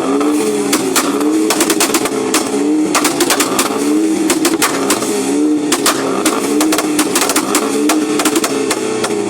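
Car engine revved over and over while stationary, its pitch rising and falling back about once every second and a half, with many sharp exhaust pops and bangs crackling through it.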